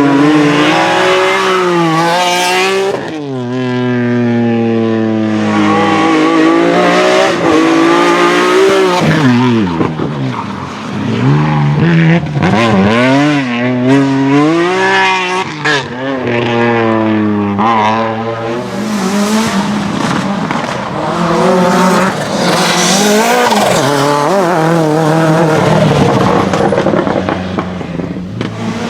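Slalom race cars driven hard, engines revving up and dropping back again and again as they shift gears and lift off, with tyres squealing at times.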